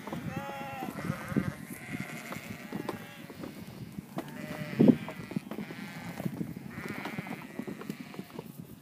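A large flock of ewes and lambs bleating, many overlapping calls one after another, over a steady clatter of small knocks and shuffling. There is one loud thump about five seconds in.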